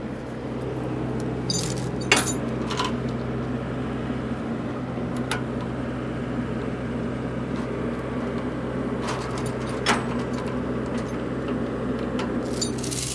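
Heavy excavator diesel engine running steadily, with sharp metallic clinks and clanks from the machine's steel parts now and then, a few bunched around two seconds in and again near the end.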